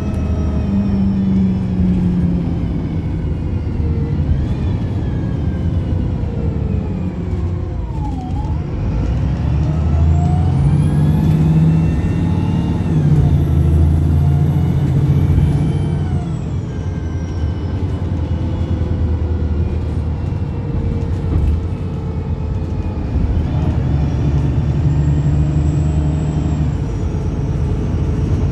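Optare Pulsar single-deck bus engine and transmission under way, the revs climbing and falling unevenly: a sharp drop and pick-up about a third of the way in, then a long pull with a high whine rising and sinking, easing off, and pulling again near the end.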